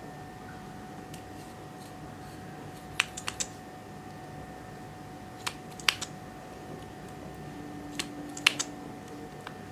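Sharp clicks and pops from clear slime being worked by hand, single or in small clusters of two or three every couple of seconds, over a faint steady hum.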